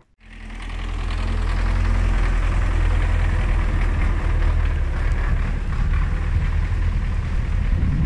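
Belarus MTZ-82 tractor's four-cylinder diesel engine running steadily at idle, fading in over about the first second.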